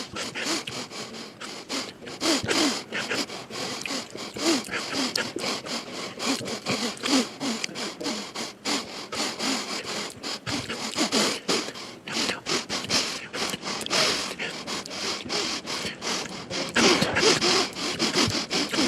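A quick, irregular run of short, sharp sniffs through a man's nose, several a second, with brief snatches of his voice in between; the sniffs are strongest near the end.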